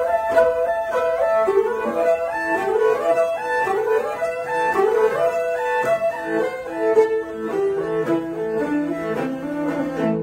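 Two morin khuurs (Mongolian horsehead fiddles) bowed together in a fast tune of quick, short notes. Several quick rising slides come in the first half, and the tune settles onto lower held notes near the end.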